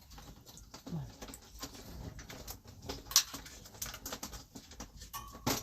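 Large parrots eating: scattered clicks and small cracks of beaks working on food, with a soft, low falling call about a second in.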